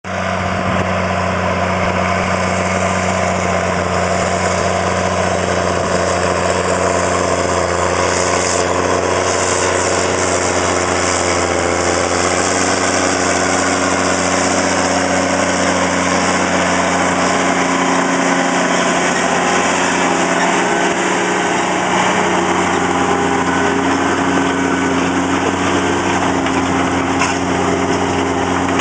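Case STX 450 Quadtrac tracked tractor's diesel engine running steadily under load as it pulls a chisel plough past, a constant deep engine note throughout.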